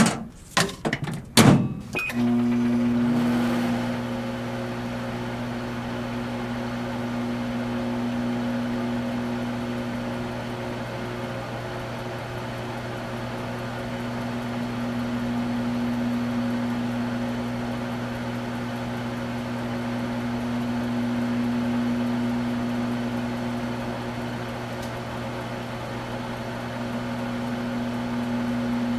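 A few sharp knocks and clicks, then about two seconds in a microwave oven starts and runs with a steady electrical hum.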